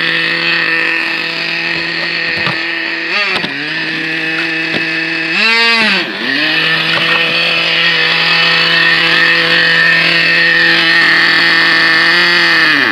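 Nitro RC car's small two-stroke glow engine idling at a steady high pitch, blipped briefly about three seconds in and given a bigger rev, rising and falling back, around five and a half seconds in.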